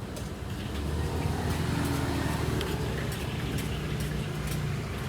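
A motor vehicle passing close by, its engine rumble swelling about a second in and fading near the end, with a few light clicks over it.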